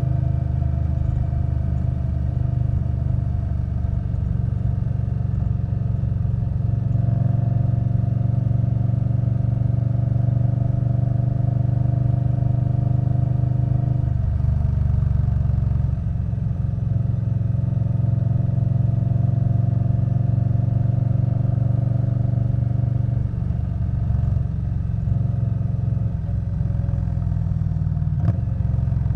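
Indian Scout Bobber Twenty's V-twin engine running through a V&H Twin Slash aftermarket exhaust while riding, a steady exhaust note. The pitch steps to a new steady level a few times, about a quarter, halfway and three quarters of the way through.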